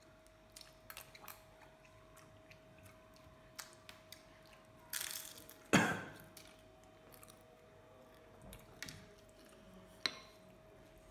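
A metal spoon scoops rasmalai and taps against a ceramic bowl, with soft chewing. There are small scattered clicks, a louder clatter about halfway through, and a sharp clink near the end.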